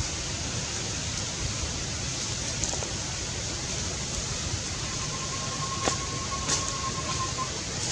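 Steady outdoor background hiss, with a thin steady tone holding for about three seconds in the second half and a couple of faint clicks.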